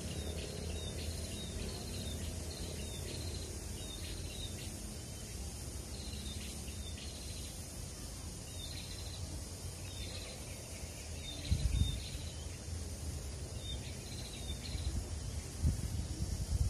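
Outdoor ambience of repeated short, high chirping calls coming in clusters, over a steady low rumble. A thump stands out about two-thirds of the way through, with smaller bumps near the end.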